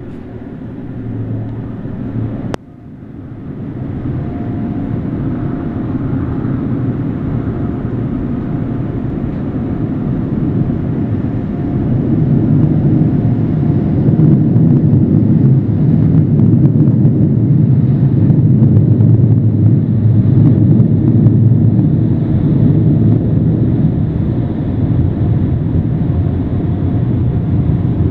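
Car in motion heard from inside the cabin: a steady low road and engine rumble that grows louder over the first dozen seconds and then holds, with a sharp click a couple of seconds in.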